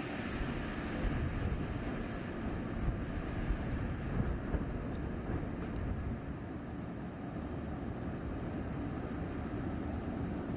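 Blizzard wind blowing steadily, a deep rushing noise that swells slightly in small gusts.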